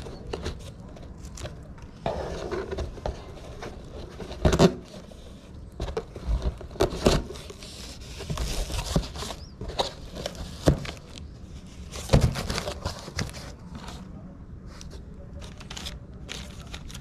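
Cardboard box being torn open by hand: packing tape ripping and cardboard flaps scraping and rustling, with a few louder sudden rips and knocks. Plastic wrapping crinkles near the end as a wrapped foam pad is handled.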